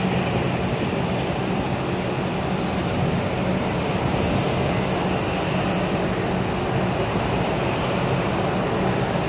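Steady rushing roar of an Airbus A350-900's Rolls-Royce Trent XWB jet engines as the airliner comes in on final approach with its gear down, heard from a distance, with a low hum beneath it.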